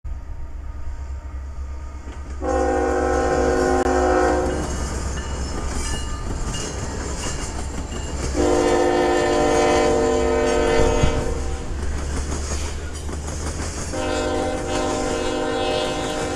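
A diesel locomotive's air horn sounds three long blasts, each a chord of several notes lasting two to three seconds, the last still going at the end. Underneath is the steady low rumble and wheel clatter of loaded coal hopper cars rolling past, with one sharp knock about eleven seconds in.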